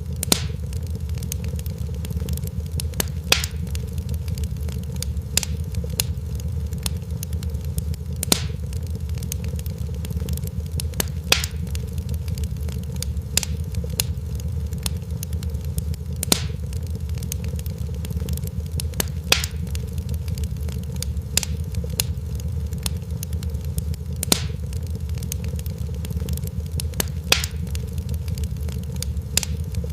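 Fireplace fire crackling: a steady low rumble of burning with sharp pops and snaps every second or two.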